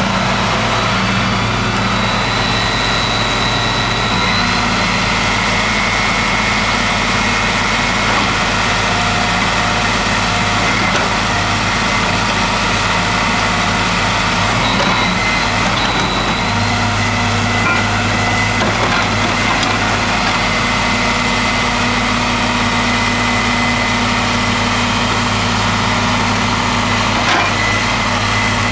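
Diesel engine of a Case Poclain 8888 wheeled excavator running steadily as the machine works, its note shifting about halfway through, with a thin high whine at times.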